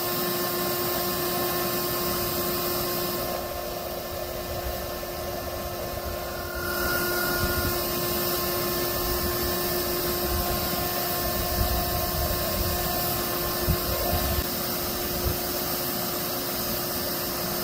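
Bee vacuum's motor running steadily with a constant hum and rushing air. Its high hiss dips for about three seconds a few seconds in.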